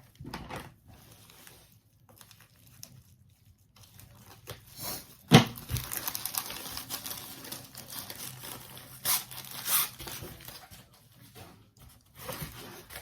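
Packaging being torn open and crinkled by hand as a diamond painting kit is unwrapped, in irregular rustles, with a sharp knock about five seconds in.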